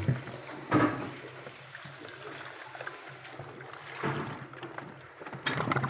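Hot water being poured over a refrigerator's iced-up evaporator coil, splashing and running off as it melts the ice, in uneven gushes with a louder splash about a second in and more near the end.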